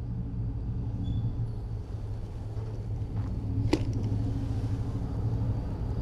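Low steady background rumble and hum, with one sharp click a little past halfway.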